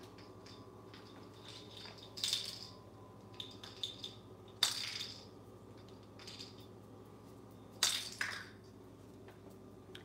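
African grey parrot knocking and pecking a small chewed toy about on a tile floor: a few sharp clatters, the loudest about two, five and eight seconds in, with fainter clicks between.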